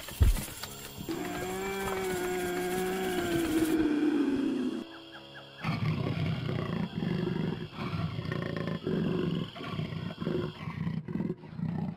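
Animal-like roaring: a held, pitched roar that sags in pitch before breaking off, then after a short pause a rougher, pulsing roar that keeps going.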